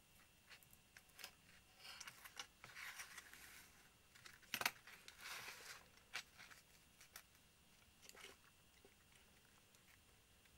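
Hobby scalpel cutting a thin balsa wood panel on a worktable, heard as quiet scratchy strokes about two seconds in and again around five seconds, with a sharp click near the middle and a few light ticks of the blade and tools against the board.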